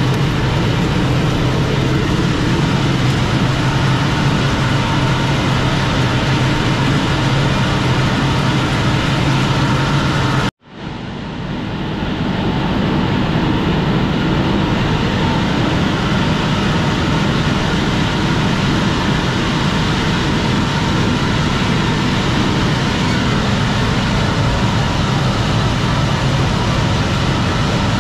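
Steady drone of a running engine or motor. It cuts out for an instant about ten seconds in, then fades back up and runs on unchanged.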